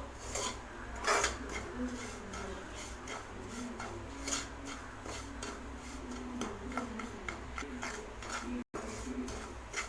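Spatula stirring semolina as it roasts in ghee in a pan: scattered clicks and taps of the spatula against the pan.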